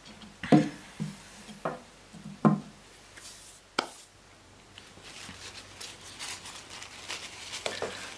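A few sharp wooden knocks as the knife and sharpening board are handled on a wooden workbench. From about five seconds in, soft rubbing of cloth and tissue paper wiping the blade.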